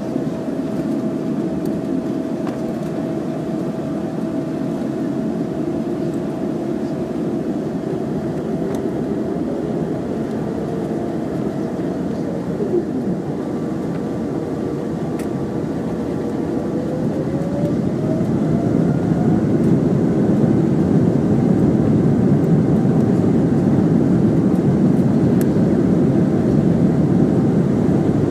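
Boeing 777-300ER's GE90 jet engines running with a steady rumble and faint whine. About two-thirds through, a whine rises in pitch and the sound grows louder as the engines spool up to takeoff thrust.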